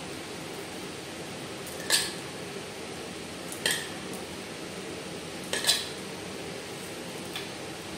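A metal spoon clinking against a plate three times, about two seconds apart, as vegetable filling is scooped and spread, with a fainter tap near the end. A steady low hiss runs underneath.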